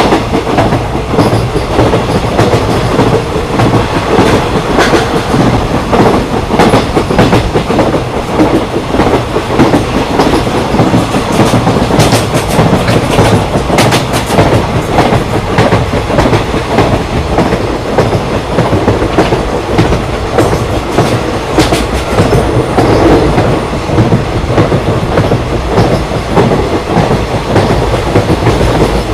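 Running track sound of Indian Railways ICF passenger coaches at speed: a steady loud rumble of wheels on rail with repeated clickety-clack clicks over rail joints.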